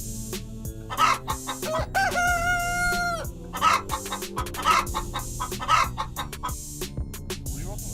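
A rooster crowing once, with a long held note about two seconds in, among short chicken clucks. Background music runs underneath.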